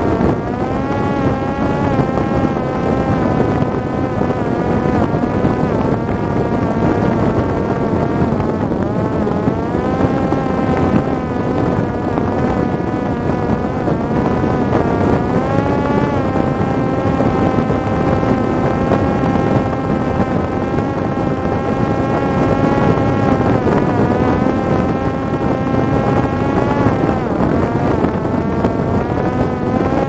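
Parrot Disco fixed-wing drone's electric motor and propeller buzzing steadily in flight, its pitch sagging and rising a few times, over a constant rush of wind.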